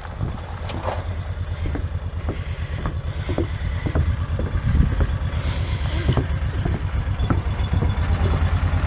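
Four-wheeler (ATV) engine idling with a steady low pulse and a few light knocks, getting a little louder near the end.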